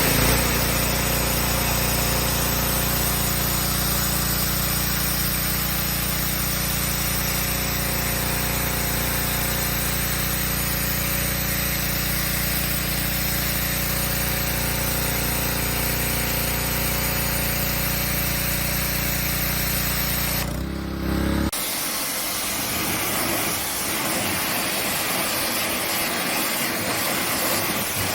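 Pressure washer running steadily: a motor hum under the hiss of the high-pressure water jet. About twenty seconds in the hum drops away and a rougher spray hiss carries on alone.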